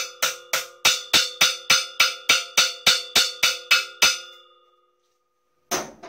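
Hammer blows on a metal strip laid on top of a steel-pipe anvil, steady and even at about three and a half a second, each leaving the pipe ringing. The blows stop about four seconds in and the ring dies away, then a short clatter near the end.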